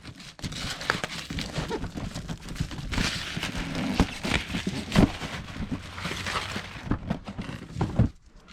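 Cardboard shipping box being handled on a table: an irregular run of knocks, taps and rustles that stops about eight seconds in.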